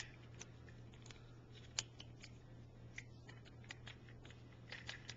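Scattered light clicks and taps of Magna Latch parts being handled and slid together, the sharpest about two seconds in.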